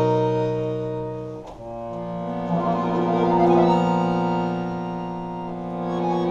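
Solo concert accordion playing slow, sustained chords that swell and fade. The sound breaks off briefly about a second and a half in, then a new held chord comes in and swells.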